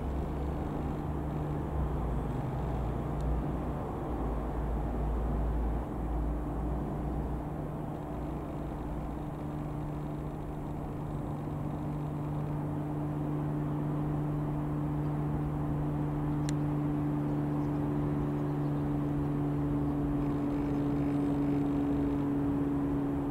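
Single piston engine and propeller of a Cessna U206F Stationair flying overhead, a six-cylinder Continental: a steady drone that grows slowly louder, its pitch dipping slightly near the end.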